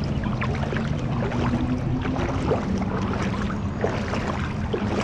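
A motor vehicle's engine running with a steady hum, under many small patters and splashes of heavy rain and water.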